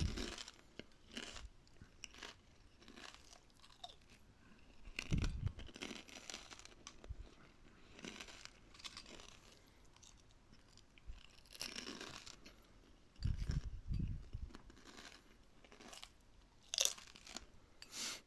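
Crunchy food being bitten and chewed: irregular crisp crunches with pauses between them, and a few heavier bites.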